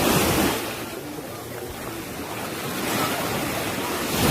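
Sea waves breaking and washing up on a sandy beach, a steady rush that swells at the start and again about three seconds in.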